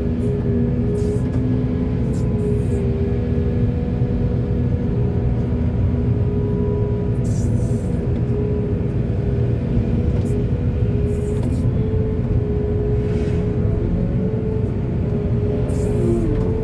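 Excavator's diesel engine running steadily under work, a continuous low rumble with a steady hum, with a few brief hissing bursts now and then.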